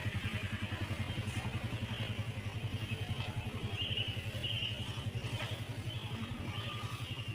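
A small engine running steadily at low speed, with a fast, even pulse of about ten beats a second.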